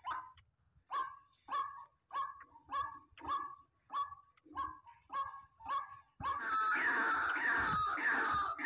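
Barred rail (tikling) calls: short yelping notes repeated just under twice a second, then about six seconds in a sudden, louder, unbroken run of overlapping calls.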